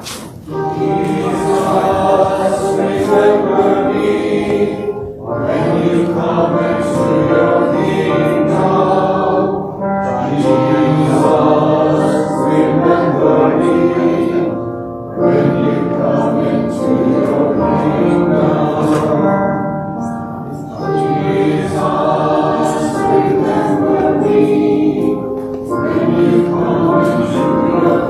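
Voices singing a hymn together, in sung phrases of about five seconds with short breaks between them.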